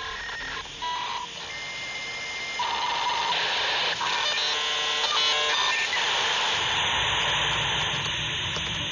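Dial-up modem connecting: short dialing tones, a steady high answer tone for about a second, then a shifting electronic handshake that turns into a broad hiss of data noise from about three seconds in.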